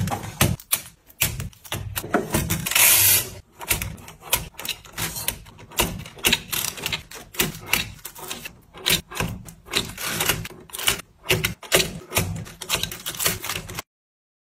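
Plastic drink bottles and small paper drink cartons being set into clear acrylic shelf organizers: a busy run of clicks, taps and plastic knocks, with a short rustling scrape about three seconds in. The sound cuts off abruptly just before the end.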